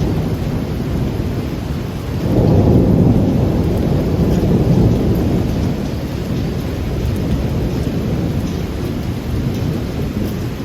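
Thunder rumbling over steady rain; the rumble swells sharply about two seconds in, then slowly dies away.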